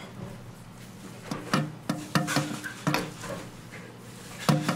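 Hard plastic toilet-cistern fittings knocking and scraping against each other and the tank as a fill valve is handled and fitted. There is a loose series of light clacks through the middle and one more near the end.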